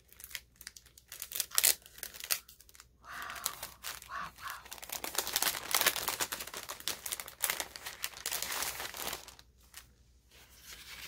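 Clear cellophane sleeve crinkling and rustling as hands open it and slide a cardstock tag out, in irregular crackles that are densest in the middle and die away near the end.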